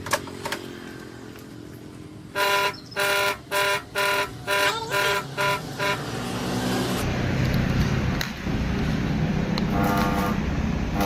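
A vehicle horn honking in a quick series of about eight short toots. A louder, steady rumble then builds, and a few fainter toots come near the end.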